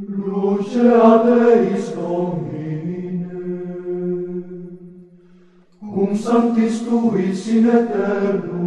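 Chanted vocal music over a held drone note, in two phrases: the first fades out about five seconds in and the second begins about a second later.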